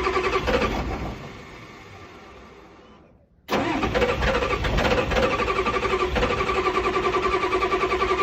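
A hard-starting engine cranked on its starter in two long goes: the first fades away over about three seconds, and the second starts suddenly about three and a half seconds in and keeps up an even, rhythmic cranking pulse to the end.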